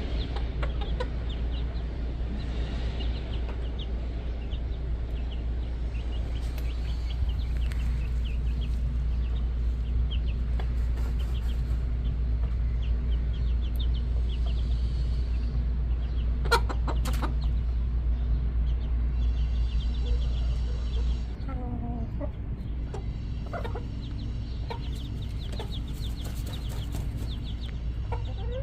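Backyard chickens clucking, with many short high chirps and a steady low rumble underneath that eases off about three-quarters of the way through.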